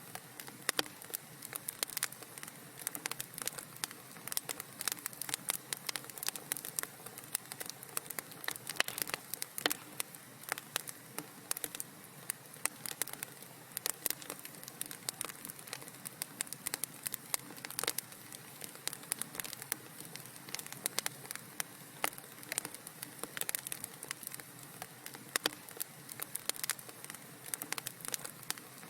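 Wood fire crackling in a fireplace: many irregular sharp pops and snaps over a soft steady hiss.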